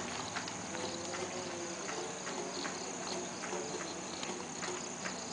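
Campfire crackling, with irregular sharp pops and snaps of burning wood. Underneath runs a steady high-pitched insect drone.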